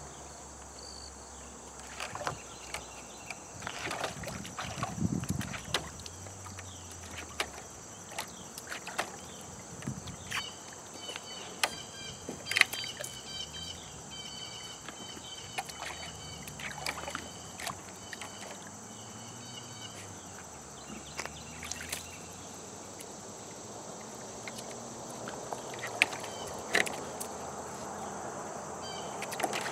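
Puppies paddling and pawing in a shallow plastic tub of water, giving scattered splashes and knocks, over a steady high insect drone.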